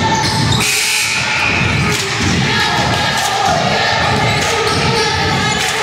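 Basketball bouncing on a gym floor, a run of low thuds, with voices from the crowd over it.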